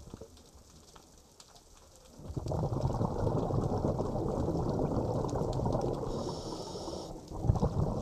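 Underwater, a scuba diver's exhaled breath bubbling out of the regulator in a long rush that starts about two seconds in, with a brief higher hiss about six seconds in. Before the bubbles there is only faint underwater crackling.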